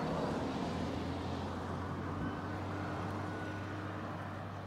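Steady drone of an engine running, a constant low hum with a higher steady tone joining about a second in.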